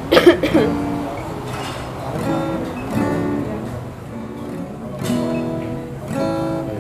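Acoustic guitar being strummed, slow chords ringing one after another about a second apart. A short, louder burst right at the start is the loudest moment.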